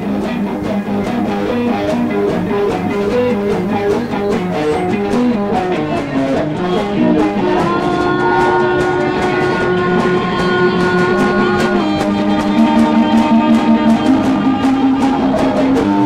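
Band music led by guitar: quick runs of plucked notes over a steady low drone, then long held notes from about halfway through, with light drums.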